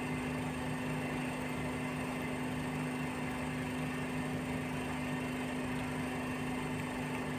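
Steady machine hum with a constant low drone, from a motor running in the background.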